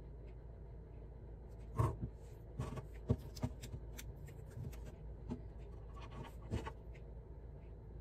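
Faint handling noises of hands at a craft table: light taps, scratches and paper rustles as a small round magnet is pressed onto a glued, paper-covered paint stick and a scrap of adhesive backing paper is fingered.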